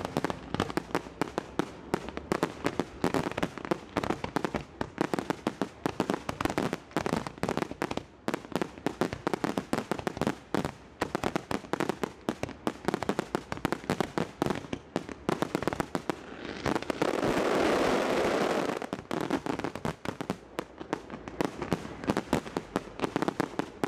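Fireworks display: a rapid, continuous barrage of bangs and crackles from aerial bursts, with a louder continuous rush lasting about two seconds some two-thirds of the way through.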